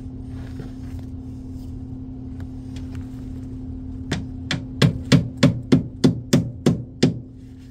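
Hammer nailing sheet-metal flashing up overhead: about ten quick blows, roughly three a second, starting about four seconds in. A steady low hum runs underneath.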